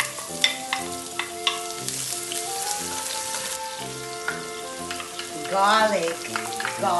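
Diced onion sizzling in hot oil in a nonstick pan, stirred with a wooden spatula, with a few sharp taps in the first couple of seconds.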